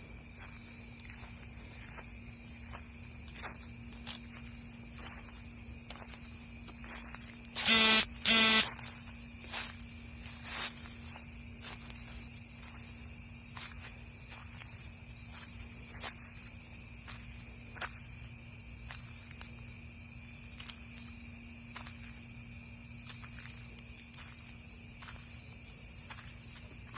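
Night insects calling steadily in several high, even bands over a low steady hum, with scattered faint ticks. About eight seconds in come two loud, sharp noises about half a second apart.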